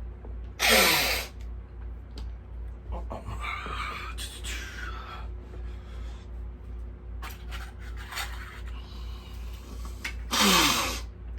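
A man drinking beer, with a breathy, falling "ahh" after a swallow about a second in and again near the end. Quiet rustling and handling of tools in between.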